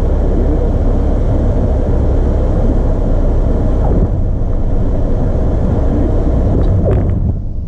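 Single-engine training aircraft's engine running at low power, heard from inside the cabin, with the rumble of the wheels rolling along the runway after landing. The noise dips briefly near the end.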